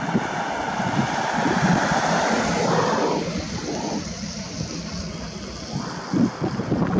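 Airbus A400M's four turboprop engines running, a steady noisy roar that thins out for a few seconds about halfway through and swells again near the end.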